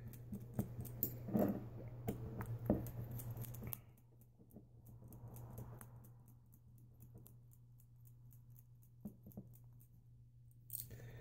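Small hand driver backing out the cylinder head screws of an OS Max 15CV model glow engine: faint metal clicks and scraping of the tool in the screw heads with handling noise, busiest in the first four seconds, then a few scattered clicks.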